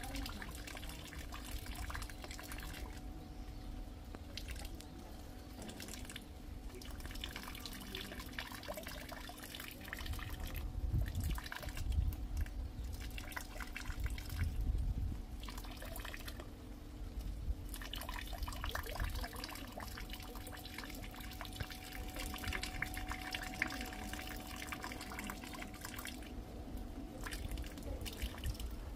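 Rain dripping and rainwater trickling in uneven spells, with a faint steady hum underneath and low rumbles swelling in the middle.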